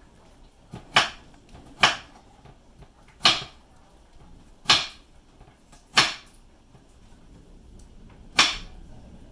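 Six short, sharp clicks or snaps at irregular intervals, about one to two and a half seconds apart.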